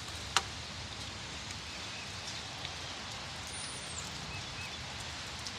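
Steady hiss of light rain falling on trees and ground ahead of a downpour, with a single sharp click about half a second in.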